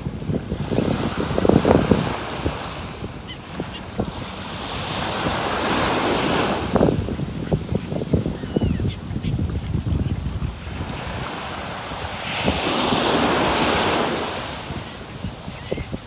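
Surf washing in slow surges, three swells of hiss, with wind buffeting the microphone. A few faint bird calls come and go.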